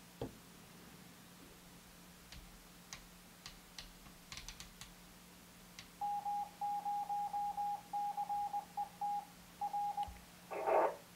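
Faint clicks of buttons on an Icom IC-7100 transceiver. Then about four seconds of a steady beeping tone from the radio's speaker, keyed on and off in uneven short and long pulses like Morse code, ending in a short burst of noise.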